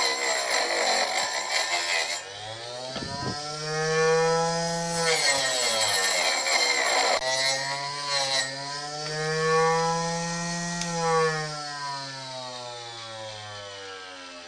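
Small circular saw blade on a homemade table saw, driven by a 12-volt 775 DC motor, cutting through thin wood pieces twice with a rough rasping noise. Between the cuts the motor's whine rises as the blade spins free, and near the end it slowly falls away and fades.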